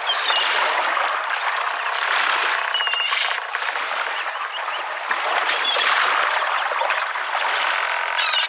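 A nature-sound ringtone played through the HTC Rhyme's small phone speaker, thin and without bass: a steady rushing, water-like hiss with a few short high chirps every few seconds.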